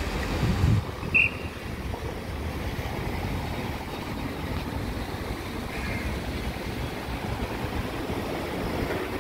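Wind rumbling on the microphone over a steady hum of city traffic, with a short high chirp about a second in.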